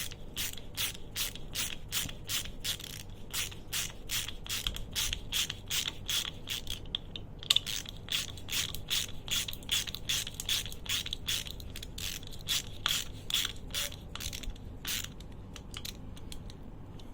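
Anex 307-D stubby 72-tooth ratchet screwdriver ratcheting: a regular run of sharp pawl clicks, about three or four a second, with a brief pause about seven seconds in and fewer clicks near the end.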